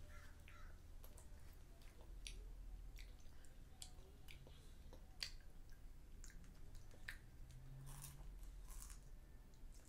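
Faint chewing and small wet mouth clicks from a young child eating chocolate, with scattered light clicks and a brief rustle of a tissue at the start.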